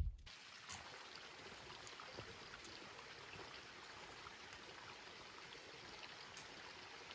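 Faint, steady rush of a stream's running water.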